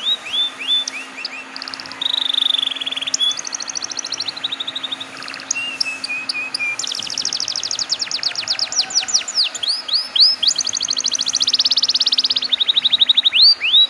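Domestic canary singing a long, continuous song of rapid trills and runs of repeated downward-sweeping notes, switching phrases every second or two. A faint steady hum lies underneath.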